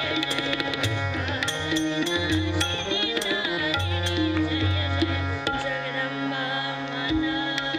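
Kirtan music: tabla with a melodic accompaniment, sharp strokes over held notes. Deep bass drum tones sound through the first five seconds or so, then drop out.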